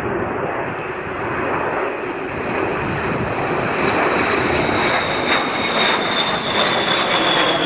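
Boeing B-52H bomber's eight jet engines in a flypast: a steady jet roar with a high whine that grows louder and slowly falls in pitch over the second half.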